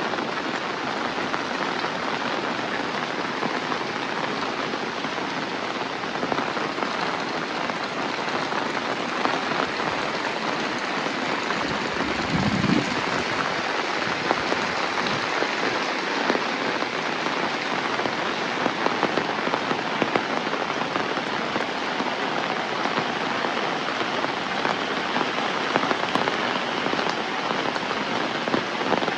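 Heavy rain falling steadily, with many individual drops spattering on nearby surfaces; a brief low sound about halfway through.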